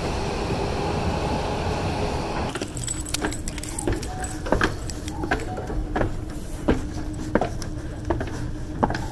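Dense station noise cuts away about two and a half seconds in to a running subway escalator: a steady hum with a sharp metallic click about every 0.7 seconds, as the steps pass.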